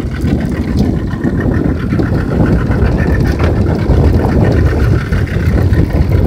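Yamaha outboard motor running steadily on a small fishing boat, a dense low rumble mixed with wind and water noise.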